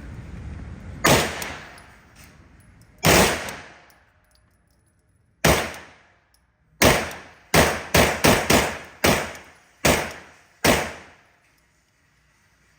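Gunshots at a shooting range, each followed by an echoing tail: a few single shots about two seconds apart, then a quick string of shots fired about a third of a second apart.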